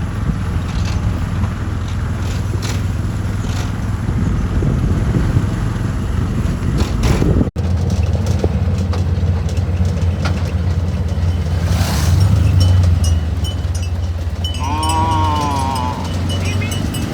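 Steady low rumble of a moving motor vehicle, engine and road noise, with an abrupt cut midway and a brief pitched call or horn note near the end.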